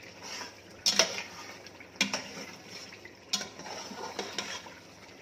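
Wooden spatula stirring and scraping thick chicken karahi masala in a non-stick pot while it is fried down, with several sharp knocks of the spatula against the pot.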